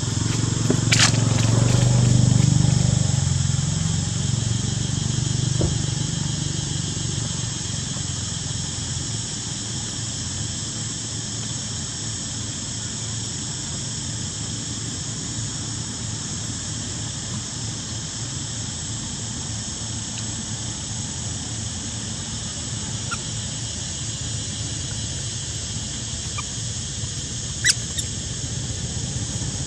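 A steady high-pitched insect drone runs under everything, and a motor vehicle rumbles past in the first few seconds, loudest about two seconds in before fading. A single sharp click comes near the end.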